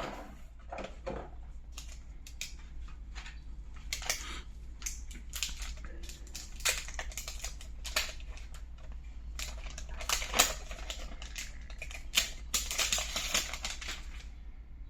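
Scattered light clicks and taps with bursts of rustling from a new smartphone and its box packaging being handled, busiest near the end, over a steady low hum.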